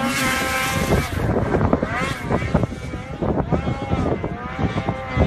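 Snowmobile engine running at high revs, its pitch dipping and rising several times, with wind buffeting the microphone.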